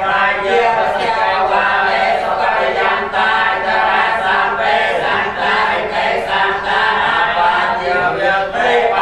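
Cambodian Theravada Buddhist monks chanting together in unison, one voice leading through a microphone, in a steady unbroken chant.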